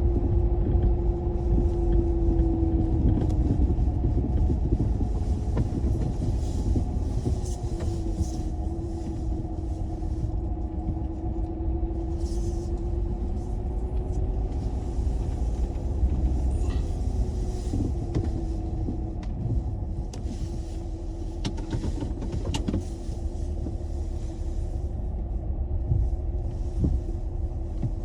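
A moving vehicle: a steady low rumble with a hum above it that drifts slightly in pitch.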